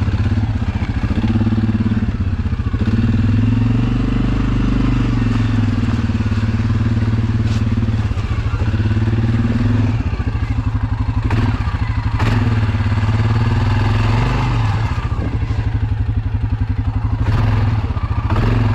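Suzuki KingQuad ATV's single-cylinder engine running at low speed, its pitch rising and falling as the quad crawls over logs and rocks in four-wheel drive. A few sharp knocks and clatters as the machine bumps over the obstacles.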